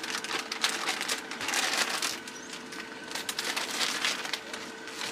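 Irregular crunching and rustling as potting soil is handled and packed around a plant in a pot.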